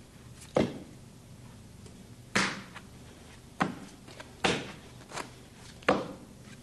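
A series of sharp knocks or slaps, about six in six seconds at uneven intervals, each short with a brief ring after it.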